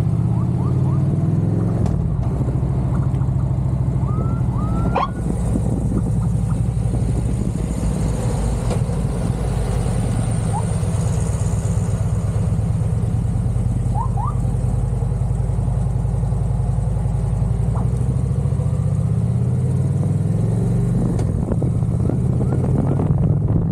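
Police motorcycle's engine running at highway speed, its pitch shifting up and down near the start and again near the end. A few short rising chirps sound over it.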